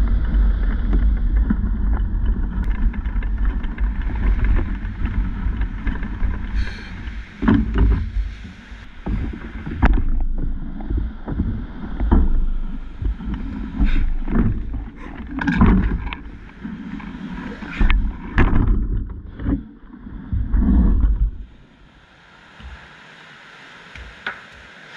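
Wind rumbling and buffeting across an action camera's microphone, with irregular bumps and knocks of handling as the wearer moves. About 21 seconds in it suddenly drops away, leaving a faint steady hiss of surf.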